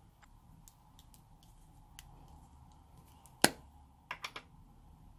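Plastic clicks from handling a small pot of modelling clay: one sharp, loud click about three and a half seconds in, then three quick lighter clicks, over quiet room tone with a few faint ticks.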